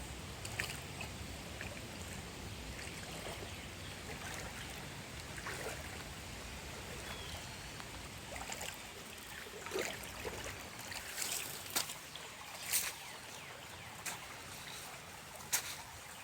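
Faint outdoor ambience of water trickling, with scattered light clicks and rustles that come more often in the second half.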